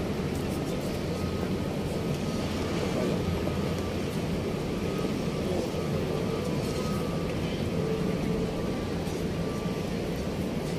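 Steady city background noise: a continuous low rumble with a faint on-and-off high tone and no single event standing out.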